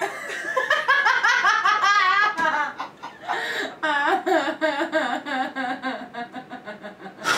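Women laughing hard in quick, high-pitched, repeated bursts of laughter.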